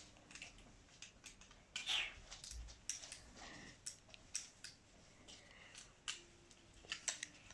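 Faint, irregular clicks and taps of small plastic parts being handled and fitted back together, with a brief rustle now and then.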